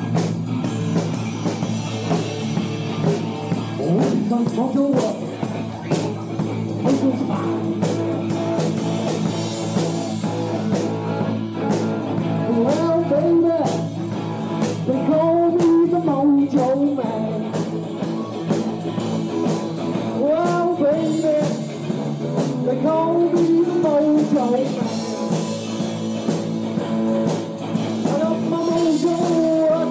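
An improvised blues-rock jam by a band with guitar and a steady beat.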